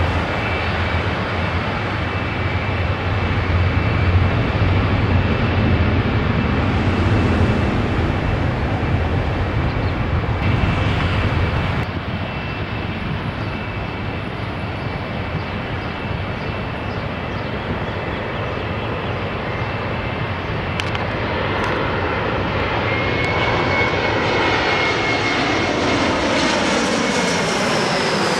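Low jet-and-traffic rumble that drops away about twelve seconds in. Then a Delta Connection Embraer E-Jet regional jet on final approach grows louder, its twin turbofans whining, as it passes low overhead near the end, with tones sliding downward in pitch as it comes over.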